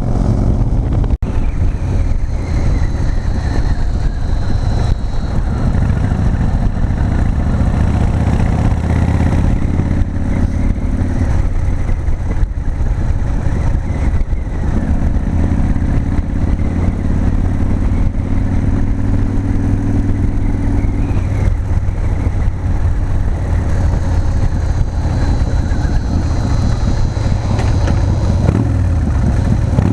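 Big Dog K9 chopper's V-twin engine running at cruising speed, heard from the rider's seat with wind and road rush over it. The engine note shifts a little now and then, and the sound drops out briefly about a second in.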